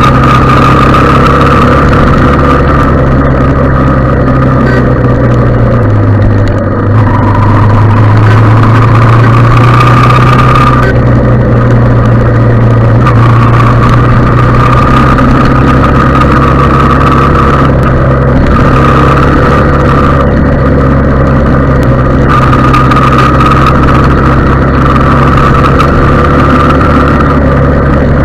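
Motorcycle engine running steadily at road speed, heard loud and close from on board the bike. Its note drops about six seconds in and picks up again about four seconds later.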